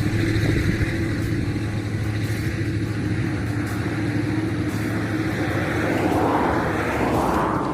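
Road traffic passing by: a steady engine hum under tyre noise, with one vehicle swelling past close by near the end.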